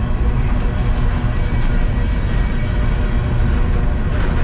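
A CSX unit coal train's loaded cars rolling past: a steady, loud rumble of steel wheels on the rails, with faint tones above it.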